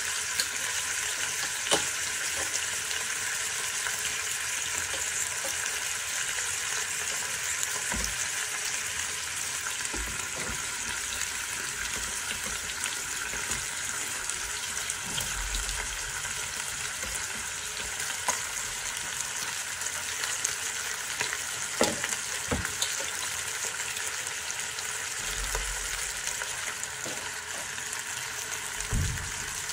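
Meat frying in hot oil in a stainless-steel pressure-cooker pot: a steady sizzle, broken by a few sharp knocks and thumps as a wooden spoon and more ingredients go into the pot.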